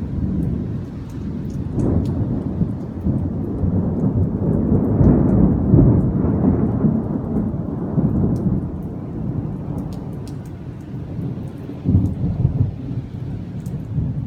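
Thunder from an approaching thunderstorm: a long, low rolling rumble that starts suddenly, swells about five or six seconds in, then a second, sharper peal about twelve seconds in.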